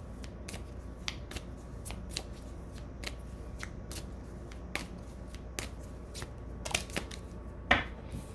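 Tarot cards being shuffled and handled: a run of irregular sharp card clicks and flicks, with a louder snap near the end.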